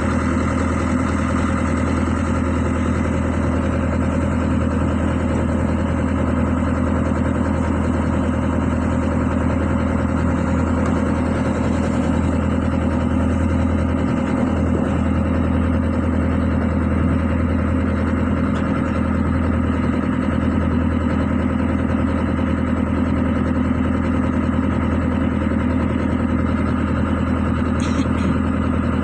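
Excavator's diesel engine idling steadily, with an even, unchanging note.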